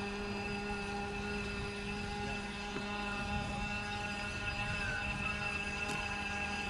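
Motor of a radio-controlled model boat running at a steady speed, a constant droning whine that holds its pitch.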